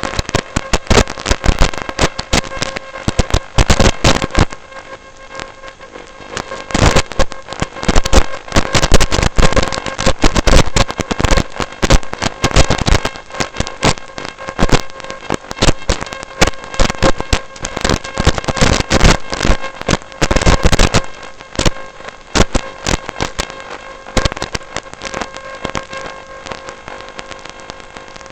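Dense, irregular crackling and clicking over a steady buzzing hum, heard through the robot's first-person-view video feed.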